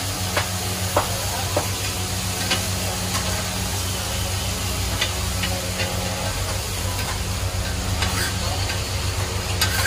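Burgers sizzling in fat on a large flat griddle, with scattered clicks and scrapes of a metal spatula against the griddle, over a steady low hum.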